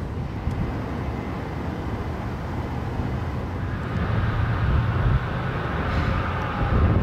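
Amtrak Southwest Chief passenger train running, heard from aboard: a steady low rumble with a noisy hiss above it, growing a little louder about four seconds in.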